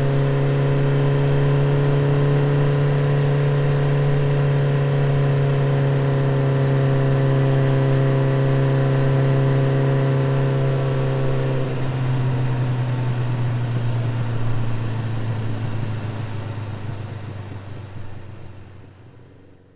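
Motorcycle engine running at a steady pitch, which drops slightly about halfway through, then fades away over the last few seconds.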